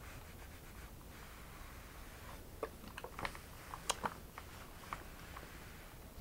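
Faint light clicks and taps of hands handling things at a sewing machine, bunched in the middle, over a low steady hum.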